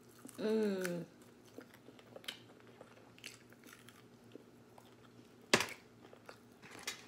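Close-up eating of king crab legs: a short hummed vocal sound falling in pitch near the start, then soft chewing and small clicks, with one sharp crack about five and a half seconds in.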